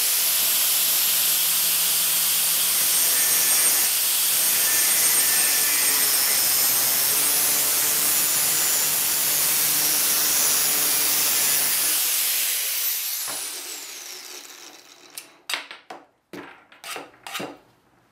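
Angle grinder with a thin cutoff disc cutting through half-inch copper pipe, running steadily for about twelve seconds, then winding down with a falling whine once switched off. A few light knocks follow near the end.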